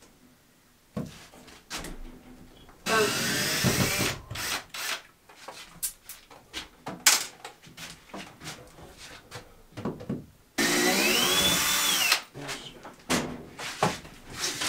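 Power drill driving screws, in two runs of about a second each: the motor's pitch rises and then holds before cutting off. Short knocks and clatter come between the runs.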